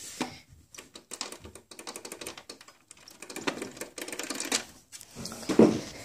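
Rapid, irregular clicking of a Dell Optiplex GX270's power button being pressed again and again, with no fan or drive starting: the PC does not respond to the button. A louder knock comes about five and a half seconds in.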